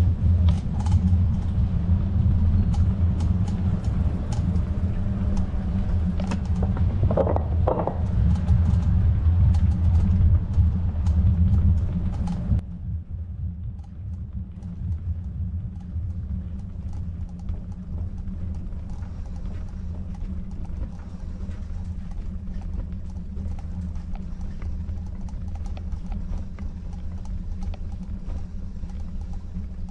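Low rumble of wind on the microphone and tyre noise from a moving bicycle, with many small ticks and clicks. A brief higher sound comes about seven seconds in. A little past twelve seconds the higher noise drops away abruptly, and a quieter rumble with ticks goes on.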